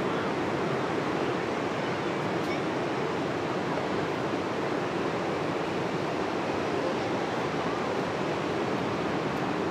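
Ocean surf breaking on a beach, a steady wash of noise with no distinct single waves standing out.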